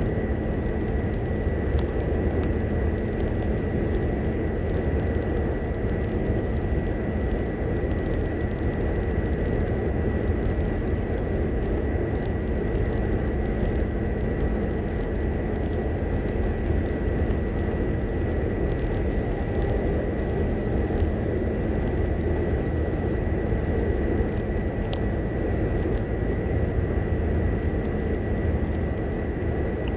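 Steady road and engine noise inside a car's cabin at highway speed, with a steady high-pitched whine above it.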